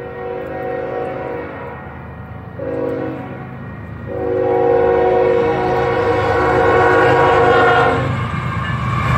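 Union Pacific diesel locomotive's air horn sounding the grade-crossing warning, several tones together: a long blast ending about two seconds in, a short blast, then a long blast of about four seconds. Under it the low rumble of the diesel locomotives grows louder as the train reaches the crossing.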